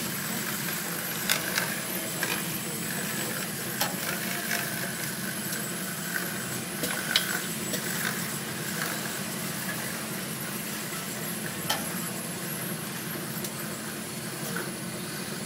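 Semi-automatic electric crêpe machine running, its carousel of hotplates turning under the batter dispenser: a steady mechanical hum with a few sharp clicks scattered through.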